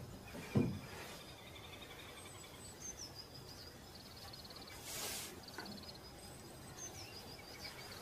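Birds chirping, with quick high trills repeated several times over a steady background hiss. A short low sound comes about half a second in, and a brief burst of hiss comes around five seconds in.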